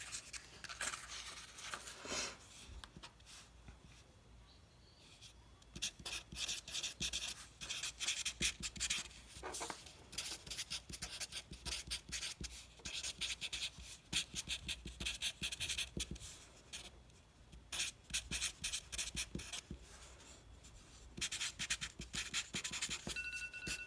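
Felt-tip Sharpie marker writing on paper: clusters of quick scratchy strokes, with short pauses between words.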